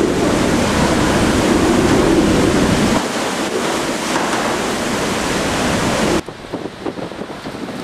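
Typhoon winds and driving rain making a loud, steady rush of noise, with heavy wind buffeting on the microphone. The low buffeting eases about three seconds in, and the whole sound drops sharply about six seconds in.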